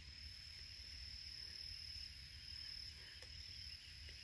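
Faint, steady high-pitched insect trill, typical of a cricket, over a low background rumble, with a couple of tiny clicks late on.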